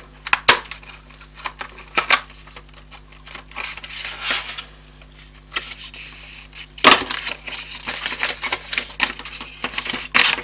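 Clicks, taps and rustling of RAM packaging being handled and opened by hand, with a louder knock about seven seconds in.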